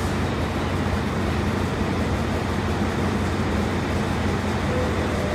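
Diesel-electric locomotive's engine running steadily with an even, low hum.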